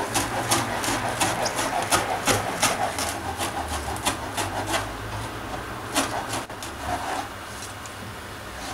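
Large kitchen knife chopping fresh parsley on a cutting board: quick, even taps of the blade on the board, about three a second, that thin out and stop about seven seconds in.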